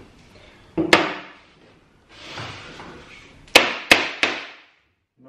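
Plasterboard stuck on with dot-and-dab adhesive being knocked with a long aluminium spirit level, tapping the board back onto the adhesive dabs to bring it level and flat. One sharp knock comes about a second in, then three quick knocks about three and a half seconds in.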